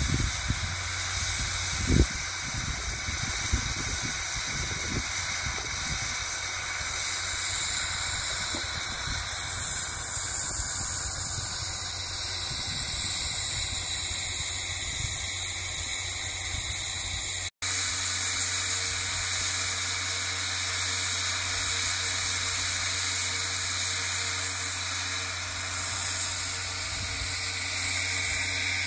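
Narrow-gauge steam locomotive 490.2002 'Ábel' standing with steam hissing steadily. A single short knock comes about two seconds in.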